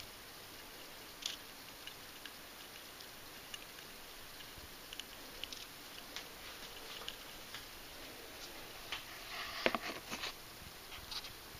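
Handling noise from a small wooden queen cage held in the fingers: scattered light clicks and rustles over a faint steady hiss, thickening into a brief flurry of louder rustling near the end.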